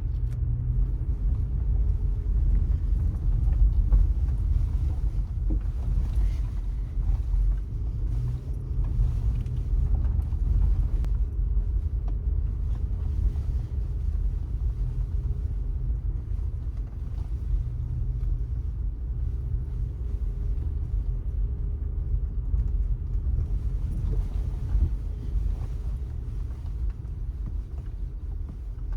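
A car driving along city streets: a steady low rumble of engine and road, with a faint engine hum that comes and goes as the speed changes.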